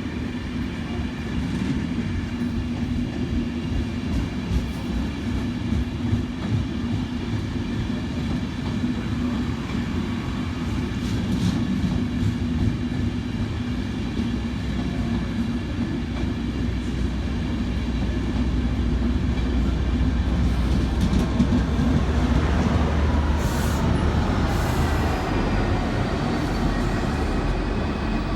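A DART class 8100 electric train under way: a steady rumble of wheels and running gear on the track. In the last several seconds a whine glides down in pitch, typical of the train slowing.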